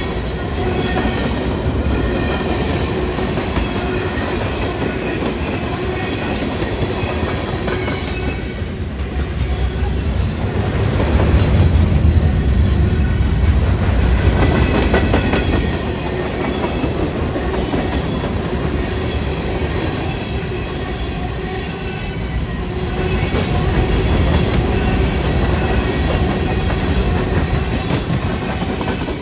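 Railroad train rolling past, its steel wheels clattering over the rails, swelling loudest about twelve seconds in.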